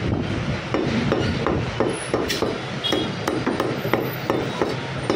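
Butcher's cleaver chopping goat meat and bone on a chopping block: rapid, even chops at about three a second, with an occasional bright metallic click.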